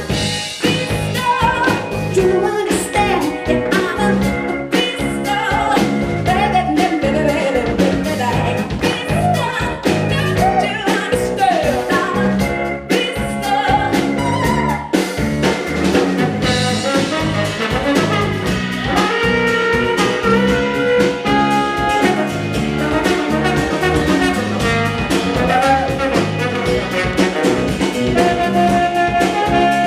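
Live jazz-pop band music with drum kit and bass, a wordless lead melody sliding in pitch over it.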